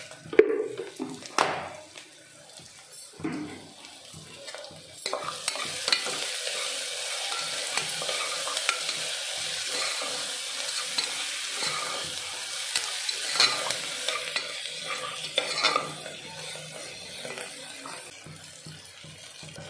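Sliced onions frying in oil in a metal pressure cooker, salted and browning, stirred and scraped with a metal spatula. A few sharp knocks of metal on the pot in the first two seconds, then a steady sizzle with scraping from about five seconds in.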